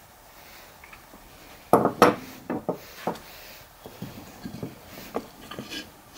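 Bent metal clamp bar and pine board handled on a wooden workbench: two sharp knocks about two seconds in, then lighter clinks and clicks of metal against wood as the bar is pushed into a slot in the board.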